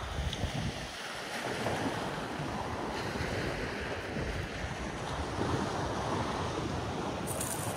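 Small waves washing onto a pebble beach, with wind rumbling on the microphone.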